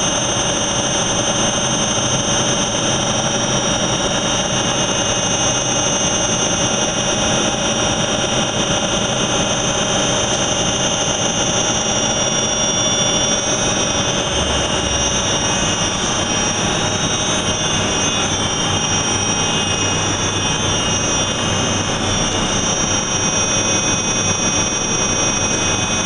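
Fan shaft spinning at a steady speed while it is being balanced: a constant loud mechanical whir with a fixed high-pitched whine over it.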